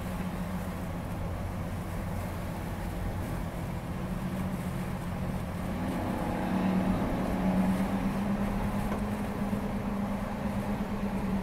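A vehicle's steady low engine hum under rushing wind and road noise; the hum rises a little and grows louder about six seconds in.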